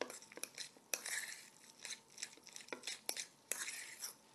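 Fork stirring and mashing egg salad in a metal mixing bowl: scraping, with several sharp clinks of the fork against the bowl.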